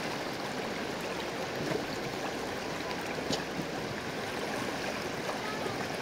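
Shallow river running fast over stones, a steady rush of water, with splashing and sloshing as a wet carpet is dragged and lifted through the current.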